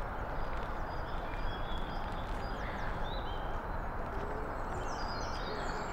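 Birds chirping over a steady rushing background noise, with short high calls scattered throughout and a run of falling whistles near the end.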